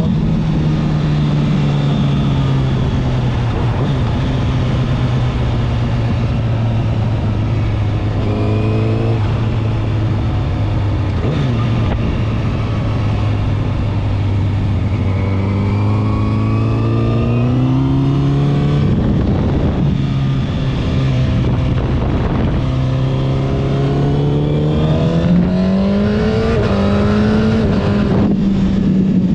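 Honda CBR1000RR SP's inline-four engine with a LeoVince exhaust, heard on the move. The engine note holds fairly steady for long stretches and climbs as the throttle opens about two-thirds of the way through and again near the end.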